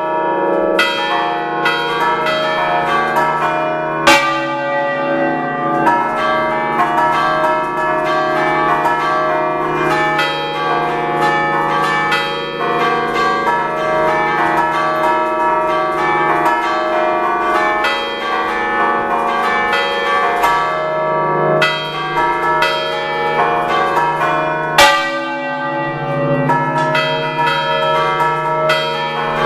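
A set of six church bells tuned in D, rung by hand in the Ligurian "a ducale" style and heard close up inside the belfry. Many strokes overlap in a continuous chime, with sharper, louder strikes about four seconds in and again about 25 seconds in.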